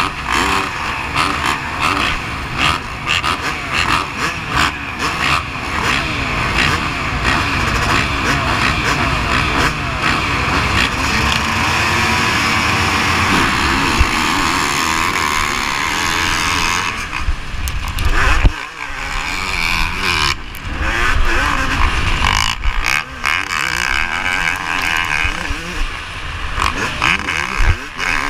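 Yamaha YZ250 two-stroke motocross engine at race pace. For the first sixteen seconds or so it is held at high revs, with repeated rising sweeps in pitch as it accelerates up through the gears. After that it goes on and off the throttle, with sudden short drops.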